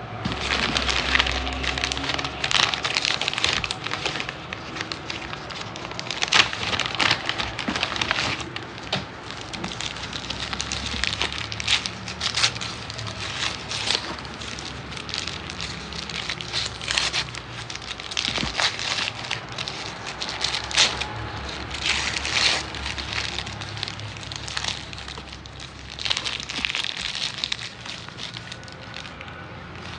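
Paper food wrapping crinkling, rustling and tearing in irregular crackly bursts as a paper takeaway bag is opened and a wrapped submarine sandwich is unwrapped.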